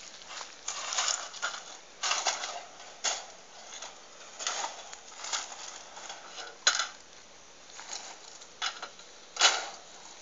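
Irregular light clattering: small clinks, rattles and rustles, with two sharper knocks in the second half.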